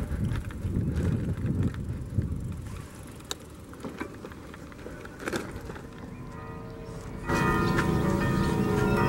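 Wind buffeting the microphone while riding, then about seven seconds in church bells suddenly start ringing: the midday bell that calls people to lunch.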